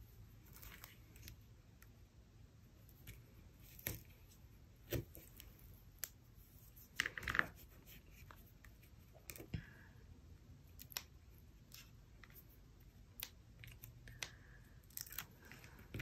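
Faint handling of double-sided tape on paper: tape pulled and torn from the roll and pressed down, heard as scattered small ticks and rips with quiet rustling between, a little louder about seven seconds in.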